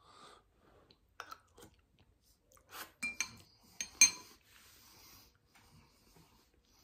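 Spoon clinking against a soup bowl a few times, with a short ringing clink about four seconds in the loudest, and soft eating sounds between.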